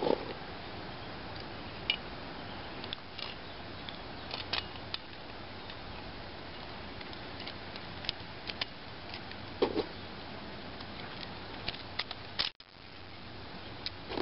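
Scattered light metallic clicks and taps of a bolted exhaust pipe clamp and pliers being handled while a Gen-Turi pipe section is taken apart, over a steady background hiss. The sound drops out briefly near the end.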